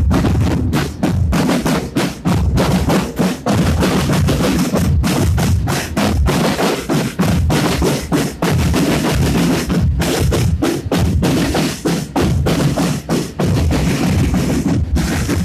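Military drum corps beating marching drums, loud, in a dense, unbroken run of rapid strikes.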